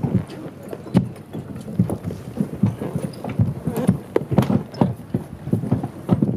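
Irregular knocking and thumping on a wooden marina dock, two or three knocks a second.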